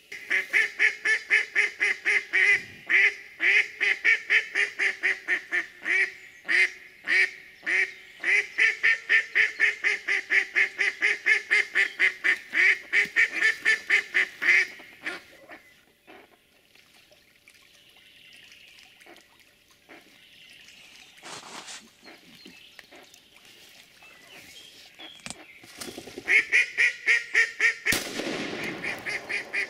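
Live decoy hen duck quacking in a long, fast series of about four quacks a second for some fifteen seconds, the call a decoy uses to draw in drakes. After a quieter stretch she starts a second quack series near the end, with a short rush of noise just before it.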